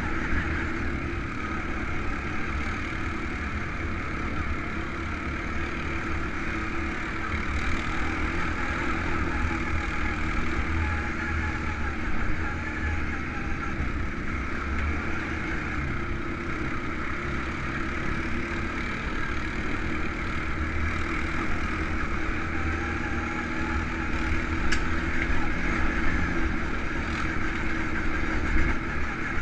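ATV engine running steadily while riding along a trail, with a continuous low rumble and a noisy mid-range drone.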